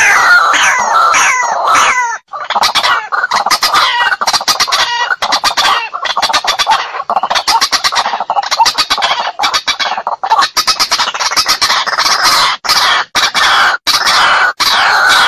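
White-breasted waterhen (ruak-ruak) giving its loud, continuous challenge call, the kind used as a lure to draw other waterhens into a fight. The calls repeat without a break: falling notes for the first couple of seconds, then rapid pulsed notes.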